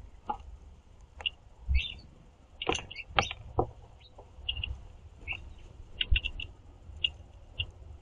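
Small songbirds giving short, scattered chirps, mixed with sharp taps from a house finch pecking seed off a wooden platform feeder. The chirps and taps are thickest about three seconds in.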